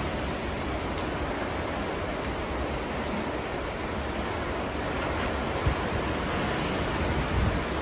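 Hurricane rain and wind: a steady rush of heavy rain with gusting wind.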